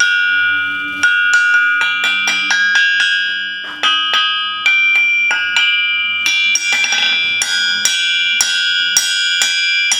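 A 455 lb North German double-horn anvil struck again and again with a hand hammer, about three blows a second, each blow leaving a clear, sustained high ring at the same few pitches. The long, even ring is the sign of a sound anvil body, one that "rings beautifully".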